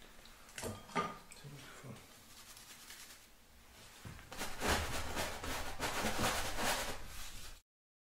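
Two light taps, then from about halfway a paintbrush scrubbing acrylic paint in quick, repeated scratchy strokes. The sound cuts off suddenly near the end.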